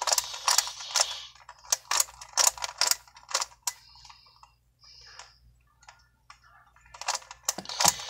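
Plastic twisty puzzle being turned fast by hand: quick runs of clicking and clacking as its pieces snap round, thinning out to a few scattered clicks in the middle before picking up again near the end.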